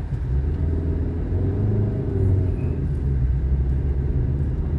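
Car on the move: a steady low rumble of engine and road noise, with the engine note wavering slightly about two seconds in.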